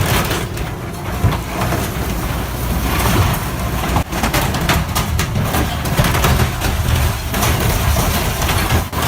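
A heavy machine's engine running under load while it crushes and tears apart a school bus: repeated crunching and scraping of metal over the engine noise, with a short dip about four seconds in.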